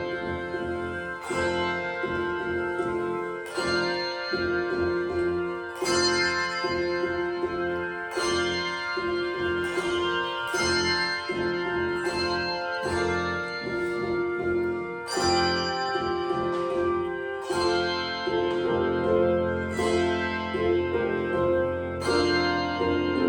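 Handbell choir ringing a slow piece: chords struck about every two seconds and left to ring over low sustained bass notes, with quicker notes in the middle register coming in near the end.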